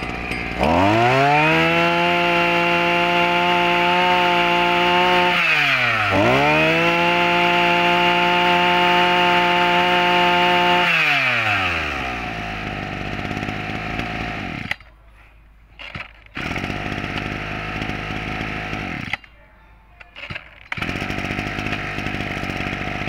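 Maruyama MB2630 brush cutter's 26cc two-stroke engine revved to full throttle twice, each time held for about five seconds, then dropping back to a steady idle.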